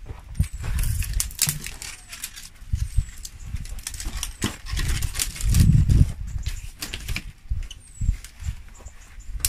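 Bundle of dry twigs being gathered and laid on a stone hearth as kindling: rustling, crackly clicks of the twigs with dull knocks against the stone.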